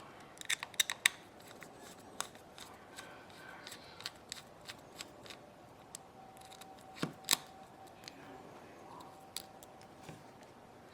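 Small hand tools clicking and tapping against the small parts of an iPod nano being taken apart. There is a quick flurry of clicks in the first second, then scattered light ticks, and two louder clicks about seven seconds in.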